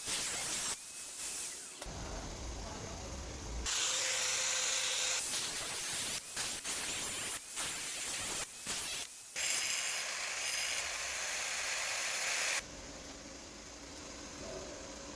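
Steady hissing noise in several stretches of a second to a few seconds, each starting and stopping abruptly.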